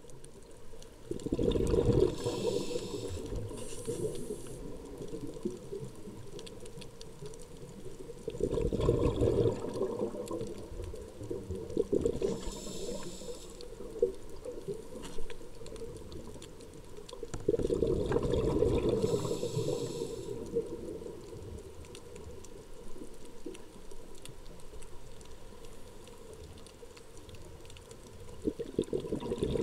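Underwater sound of a scuba diver breathing: exhaled bubbles come as low, bubbling rumbles in four slow swells some eight to ten seconds apart, with airy regulator hisses between and over them.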